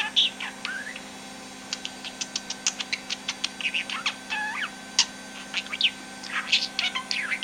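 Budgerigar chattering: a rapid run of clicks, short chirps and squeaky warbling notes.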